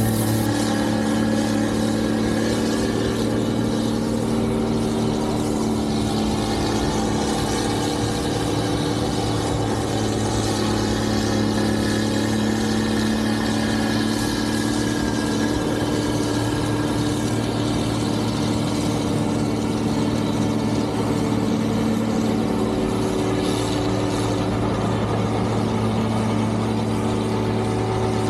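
Engine of snow-removal machinery running steadily at a constant speed, a low hum whose pitch barely changes.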